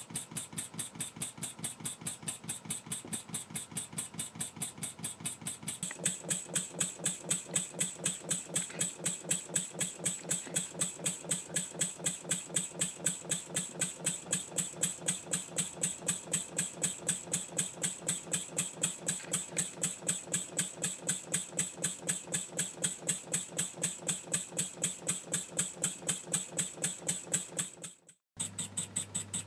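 Wig-Wag model steam engine running on compressed air, an even, rapid beat of exhaust puffs and mechanical clicking. It gets louder about six seconds in and drops out briefly near the end.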